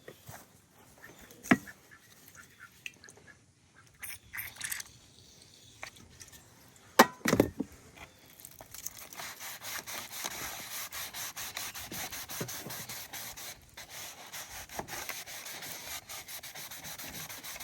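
A few handling clicks and knocks, the loudest a sharp one about seven seconds in, then fast, steady back-and-forth rubbing on the ATV's plastic instrument display lens to clear it so the odometer can be read.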